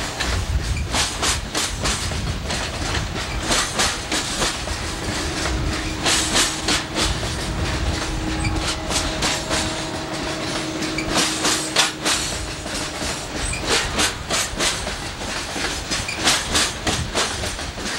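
Loaded coal hopper cars of a freight train rolling past, their wheels clacking over the rail joints in quick clusters over a steady low rumble. A faint thin squeal from the wheels runs through the middle.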